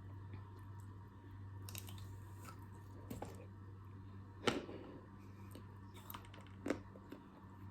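Close-up eating: chewing with sharp cracks from biting into frozen chocolate-covered strawberries. The two loudest snaps come about four and a half and six and a half seconds in.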